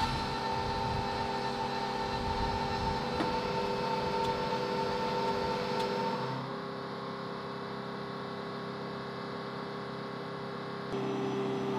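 Steady machinery hum with a held whine over a lower drone. It changes and gets quieter about six seconds in, then louder again near the end.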